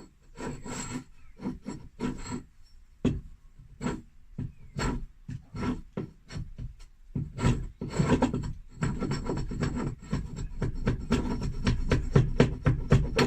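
An axe head's steel edge being sharpened by hand, stroke by stroke. The strokes come spaced apart at first and then fast and back-to-back for the last several seconds.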